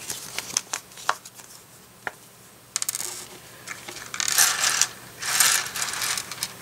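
Loose LEGO plastic pieces clicking and clattering against each other and a hard tabletop as hands sort through them, with two short bursts of rustling a little after four and five seconds in.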